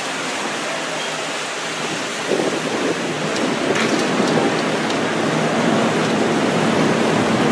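Wind and rough sea: a steady rushing of wind on the microphone and waves surging against the ship's hull, growing a little louder about two seconds in, with a few faint knocks.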